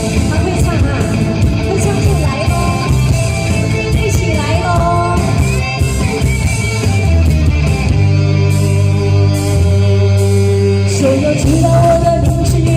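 Pop-rock band music with electric guitar, loud throughout; about eight seconds in the band holds long, sustained chords.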